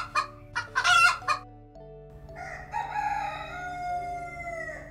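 A hen clucking in a few short bursts. Then, about two seconds in, a rooster crows once, a long call of about two and a half seconds, quieter than the clucks.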